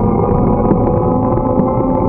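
Steady road and wind noise from riding a bicycle: a continuous low hum from the tyres and drivetrain, carrying a few faint steady tones, with wind on the microphone.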